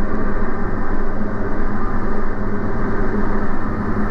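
Diamond DA40's engine and propeller droning steadily in flight, with a strong steady hum, heard in the cockpit.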